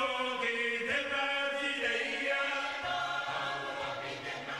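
Background music of voices chanting together in long held notes, with a low held note joining about three seconds in and the music slowly fading.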